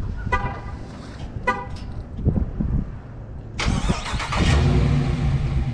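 Two short horn chirps from a Dodge Charger R/T as the key fob is used. About three and a half seconds in, its 5.7-litre Hemi V8 cranks and fires on a cold start, then settles into a steady idle with a low rumble.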